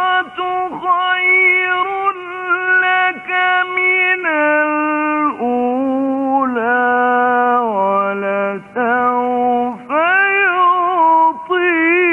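A man's solo voice reciting the Quran in the melodic mujawwad style, one long drawn-out phrase of held, ornamented notes. The pitch steps down over the first two-thirds, breaks off briefly, then climbs back up near the end.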